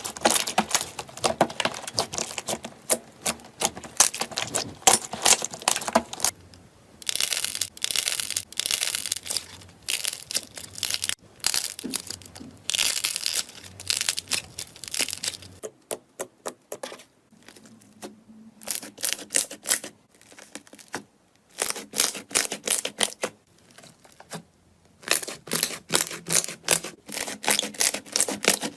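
Slime being squeezed and stretched by hand, giving runs of dense crackling and popping clicks with a few short pauses between handfuls.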